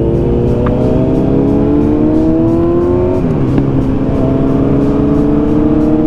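Motorcycle engine accelerating with a rising pitch, then dropping sharply as it shifts up a gear about three seconds in, before pulling again. A steady rush of wind and road noise sits under it.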